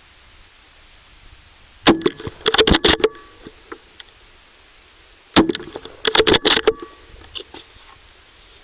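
.30-06 rifle shot recorded by the scope's own microphone: a sharp, loud report that briefly overloads the recording, followed by a quick rattle of clicks. This happens twice, about three and a half seconds apart, over a steady hiss.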